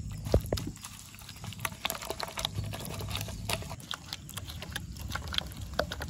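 A wet, yogurt-based masala paste being mixed by hand in a bowl: irregular soft squelches and small clicks.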